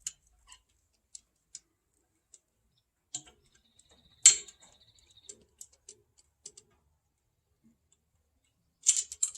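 Hand tools clicking and tapping on metal, irregular and sparse. A louder clink about four seconds in rings briefly, and a quick cluster of clicks comes near the end.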